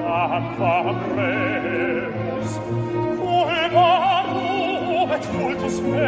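Operatic singing with heavy vibrato over sustained instrumental accompaniment, the voice holding long wavering notes, loudest in a phrase in the second half.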